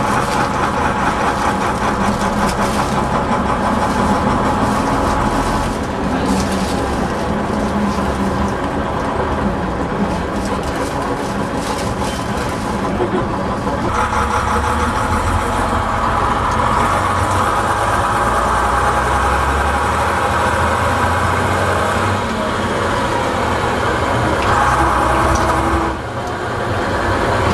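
Leyland engine of a Bristol VR double-decker bus running, heard from inside the passenger saloon as the bus gets under way. The note steps up about halfway through and drops briefly near the end.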